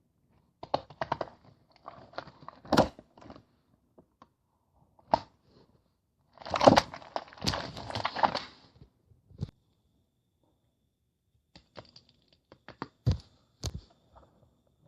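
Intermittent clicks, knocks and rustling in a small room, with a louder stretch of rustling about six to eight seconds in and a quiet pause after it.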